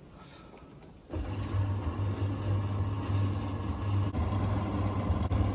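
Thompson TD120 compact vented tumble dryer starting up about a second in, then running steadily: a loud low motor hum with the whoosh of the turning drum and fan.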